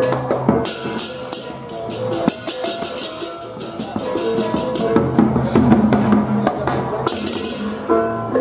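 Balinese baleganjur gamelan ensemble playing: cengceng kopyak hand cymbals clashing in fast, dense strokes over kendang drums and ringing gongs. The cymbal clashing swells near the start and again about seven seconds in.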